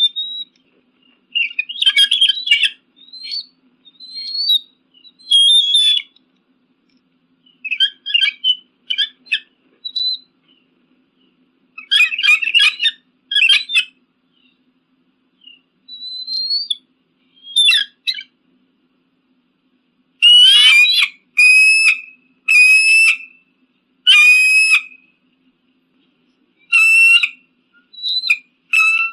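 Eagle calling: bursts of high-pitched whistled, chattering calls separated by short silences, then about twenty seconds in a run of five longer, harsher calls roughly a second apart.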